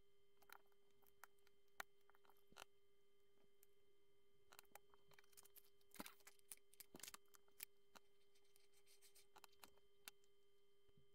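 Faint scattered clicks of plastic Lego pieces being picked out of a tub and pressed together, busiest about halfway through, over a faint steady hum.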